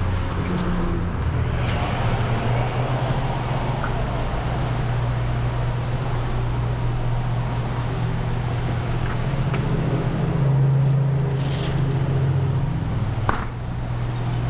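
Steady low machine hum of a convenience store's refrigerated drink coolers, with a single sharp click about a second before the end.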